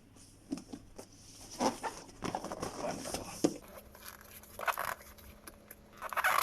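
Packaging being handled while a vacuum cleaner is unboxed: irregular crinkling and rustling with scattered clicks and knocks, and a few louder rustles near the end.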